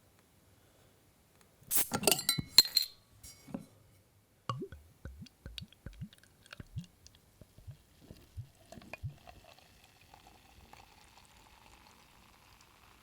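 A metal cap prised off a glass bottle with a quick run of sharp clicks and clinks, then liquid glugging out in a series of gurgles, followed by a steady pour whose pitch rises as the vessel fills.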